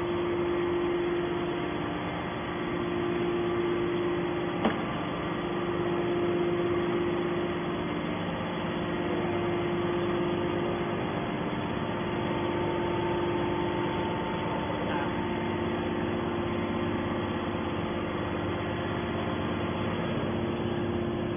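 Hydraulic scrap metal baler's power unit humming steadily, with nothing being pressed, and one sharp click about five seconds in.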